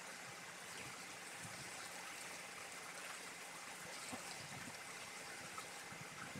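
Garden hose running, a faint steady trickle of water onto a concrete floor, with a couple of light knocks partway through.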